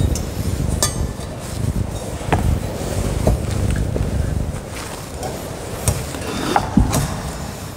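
Several scattered clinks and knocks of metal altar vessels being handled and set down on the altar during the purification of the vessels after communion, a few ringing briefly. Under them runs a low steady rumble.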